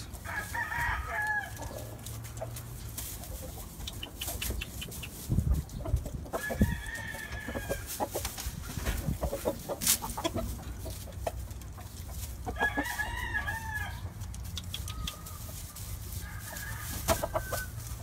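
Gamefowl roosters crowing about five times, each call lasting around a second, with scattered clicks and rustles between the crows.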